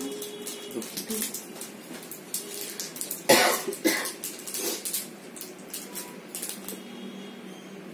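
A person coughing: one loud cough about three seconds in, then two weaker ones. Small clicks and handling noises run underneath.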